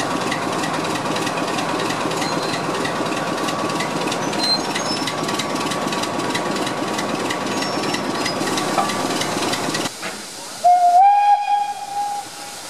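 Class 26 diesel locomotive's engine running steadily at idle close by. Near the end a steam locomotive's whistle sounds once for about a second and a half, followed by hissing steam.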